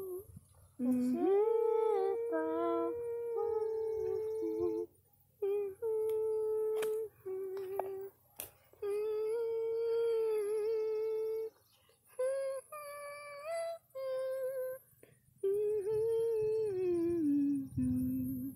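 A girl humming a slow wordless tune in long held notes with short breaks between them, the last note sliding down in pitch near the end.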